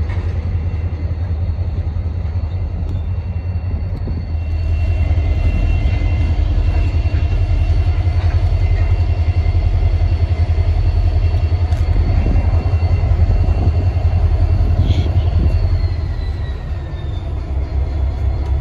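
Norfolk Southern diesel freight locomotives running past at low speed: a steady engine rumble with a thin high whine. It grows louder about four seconds in and eases off after about sixteen seconds, when a high tone slides down in pitch.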